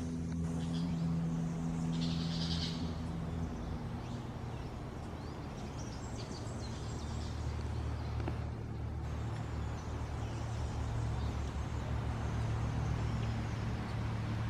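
Low steady motor hum of vehicle traffic, its pitch shifting about four seconds in, with brief faint bird chirps about two seconds in.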